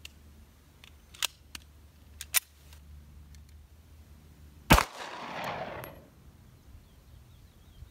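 A few sharp metallic clicks as the Benelli B76 pistol is loaded, then a single 9mm pistol shot about four and a half seconds in, its report echoing away over about a second.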